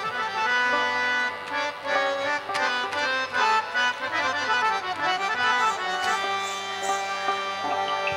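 Folk band playing an instrumental introduction: a harmonium holding a melody over plucked strings and hand drum, leading into a baul song.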